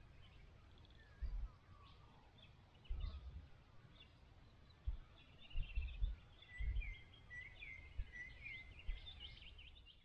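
Several wild birds calling and trilling, the chorus getting busier over the second half. Short low rumbles of wind buffeting the microphone come every second or two and are the loudest thing heard.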